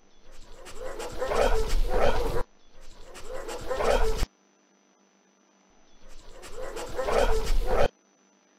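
A team of sled dogs barking, played in three bursts that each build up and then cut off sharply.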